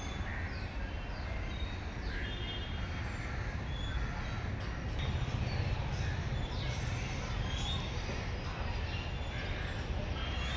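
Birds calling outdoors, many short downward-sliding calls and brief high notes repeated throughout, over a steady low rumble.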